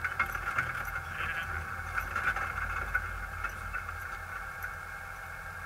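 Air-cooled VW Baja Bug engine running steadily at low revs, heard from inside the cabin, with scattered light clicks and rattles.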